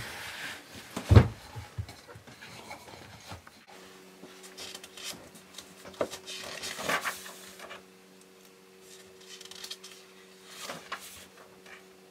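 Handling sounds on a wooden table: a hard knock about a second in as a wooden board is set down, then quieter scraping and shuffling as papers and a notebook are moved and leafed through. From about four seconds in a faint steady hum sits underneath.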